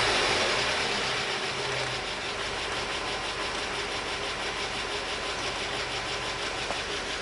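ZMZ-402 four-cylinder petrol engine settling back from a rev over the first couple of seconds, then idling with a steady, rapid ticking knock, the strange knock the owner places around the number-one cylinder.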